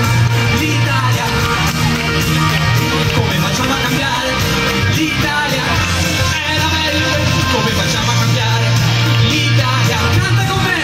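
Live Italian pop-rock song through a PA: a man singing over an instrumental accompaniment with a steady bass.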